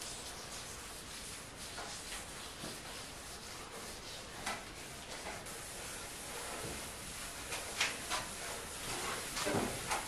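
Cloth rubbing wood finish into an oak tabletop: a steady hiss of wiping with a few soft knocks and scuffs, the loudest near the end.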